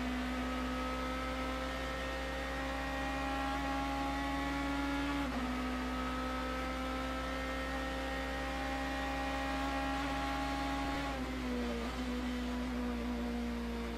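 BMW M3 GT race car's V8 engine under full throttle, heard onboard: the pitch climbs slowly, drops sharply at an upshift about five seconds in and climbs again. Near the end the pitch falls in two steps and sags as the car comes off the throttle.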